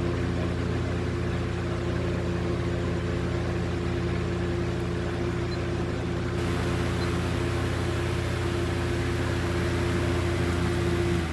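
Lakewood 200i 20-inch box fan running on high with its original blade: a steady motor hum under a constant rush of air.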